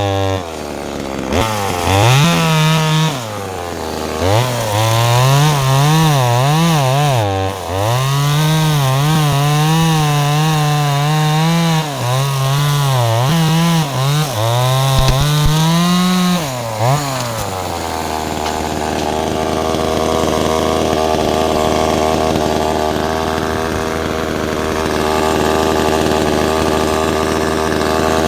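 Chainsaw cutting through a large dry branch, its engine pitch dipping and recovering under load for about 17 seconds, then dropping to a steady idle until the end.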